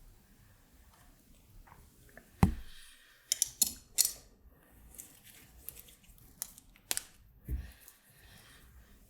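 Small tools and parts handled at a soldering bench: a dull knock, a quick cluster of sharp clicks and snips, then a few lighter clicks and another knock.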